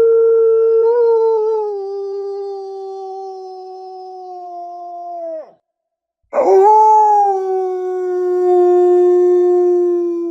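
A single wolf howling. One long, steady howl sinks slightly in pitch and breaks off about five and a half seconds in. After a short pause a second long howl begins with a quick rise, then holds steady.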